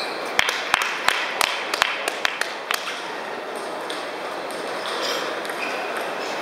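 Table tennis ball clicking sharply about seven times in quick succession, roughly three a second, stopping near the three-second mark. After that comes the steady background of a large hall, with faint ball clicks from other tables.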